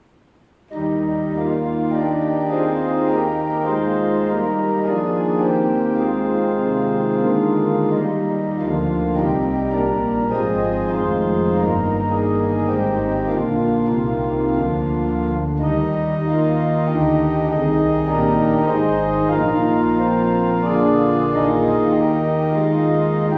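Organ music: full sustained chords that start suddenly about a second in after near silence, with deep bass notes joining about nine seconds in. Coming straight after the benediction, it is the closing postlude of the service.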